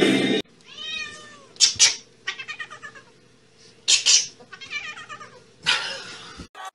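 A cat yowling in drawn-out, wavering calls, broken by three short, loud, noisy bursts. Background music cuts off half a second in.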